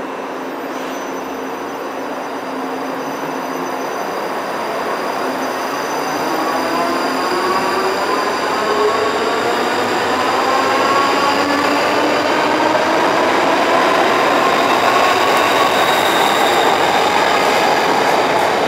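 ScotRail Class 334 electric multiple unit pulling out of the platform and accelerating past, its drive giving several whines that climb slowly in pitch over the running noise of wheels on rail. The sound grows steadily louder as the carriages go by.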